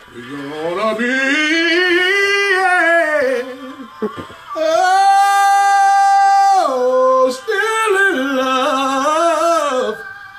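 A man singing a long wordless run of high notes. The voice climbs at the start, holds one note for about two seconds in the middle, then wavers through shorter notes to the end.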